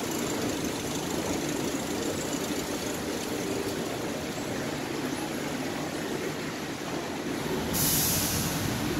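Steady hum and rumble of the Skylink automated people-mover train at the platform. Near the end comes a sudden loud hiss of air that lasts about a second.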